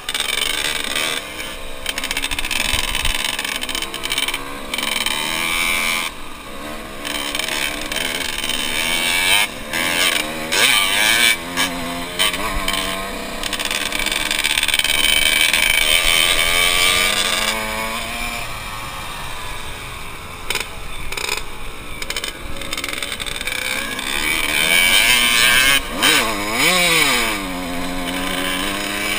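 Yamaha dirt bike engine running under way, its pitch rising and falling with the throttle, with a dip and a climb again near the end. Wind rushes over the onboard microphone throughout.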